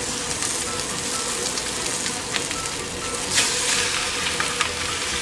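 Raw chicken thigh pieces searing in smoking-hot oil in a wok over a high-heat gas wok burner. They give a steady, dense sizzle with occasional crackles.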